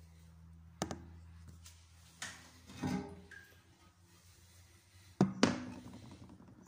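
Ceramic toilet tank lid being handled and taken off: a sharp knock about a second in, a couple more clunks between two and three seconds, and the loudest pair of clunks just after five seconds.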